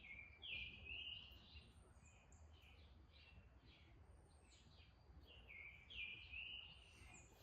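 Faint bird song: the same short chirping phrase twice, about five seconds apart, over a low hum.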